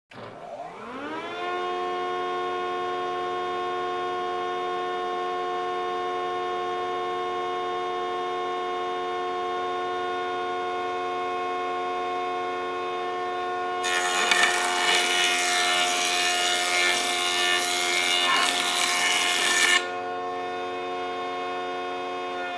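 Woodworking jointer switched on from silence, its motor and cutterhead winding up to a steady whine within about two seconds. About two-thirds of the way through, a board is fed across the cutterhead for some six seconds, a loud rough cutting noise over the whine, which then runs on alone.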